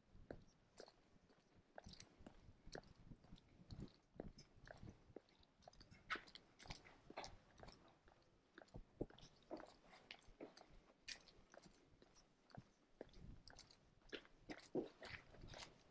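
Faint crunching footsteps of someone walking on a paved lane, a string of soft irregular clicks.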